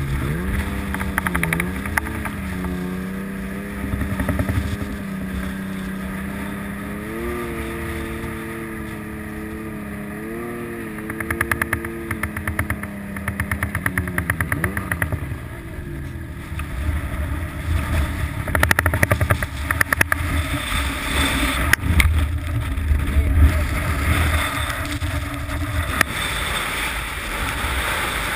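Snowmobile engine running at a steady cruise, its pitch dipping and rising a little, then dropping and fading about halfway through. Through the second half, heavy wind buffets the microphone with a rough rumble and scattered knocks.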